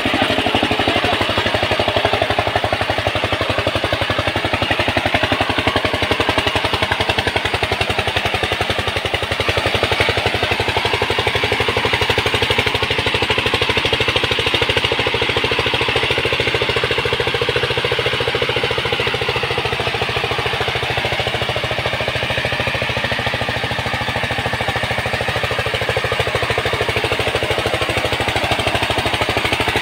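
Power tiller's single-cylinder diesel engine running steadily under load, belt-driving a homemade pump, with water gushing and splashing from the pump's outlet pipe.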